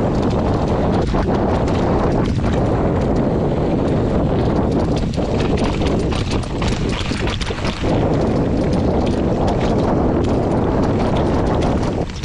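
Mountain bike riding fast down a rough dirt and stone trail: tyres crunching over loose ground and the bike rattling over bumps in a dense, constant clatter.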